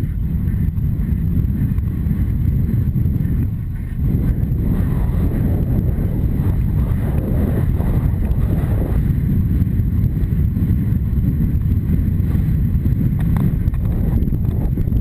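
Wind buffeting a helmet-mounted camera's microphone as a horse gallops across grass, a loud, steady low rumble with the horse's hoofbeats mixed in beneath it. The rumble drops briefly about four seconds in.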